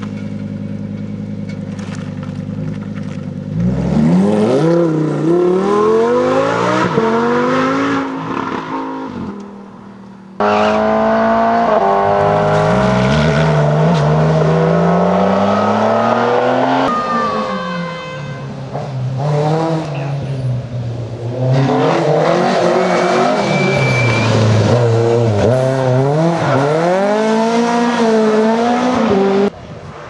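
Rally cars' engines revving hard and changing gear one car after another, with the revs rising and dropping again and again and abrupt changes where one car gives way to the next. Early on it is a Lamborghini Huracán Performante's V10; in the middle it is an air-cooled Porsche 911's flat-six.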